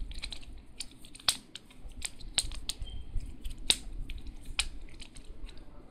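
Plastic infinity cube, a fidget toy of hinged blocks without magnets, folded and flipped in the hands: irregular sharp clicks and clacks as the blocks snap against each other, several a second, over a soft handling rumble.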